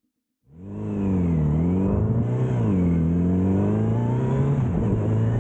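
An engine running, fading in about half a second in, its pitch dipping and rising twice as it is revved, with a steady hiss above it.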